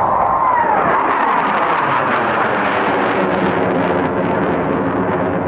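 Aircraft flying past, with loud, steady engine noise and a whining tone that arches up and falls away in pitch about a second in.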